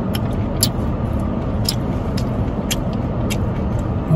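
Steady low rumble of a car's cabin noise, with a few short, sharp clicks over it.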